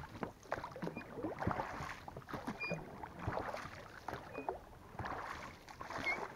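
Oars working an inflatable rowing boat: water splashing and knocking, in strokes about every second and three-quarters, with a short high squeak from the oarlocks on each stroke.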